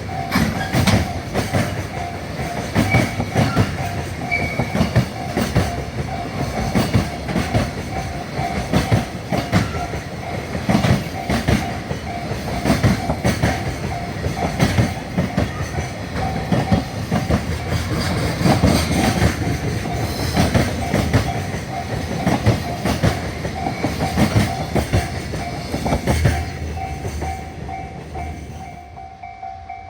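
Freight train of container wagons rolling past, its wheels clattering over the rail joints, while a level-crossing warning bell rings steadily. Near the end the train noise dies away and the bell keeps ringing.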